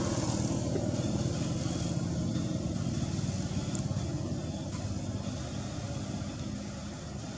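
A steady, low engine rumble, like a vehicle running nearby, slowly getting quieter.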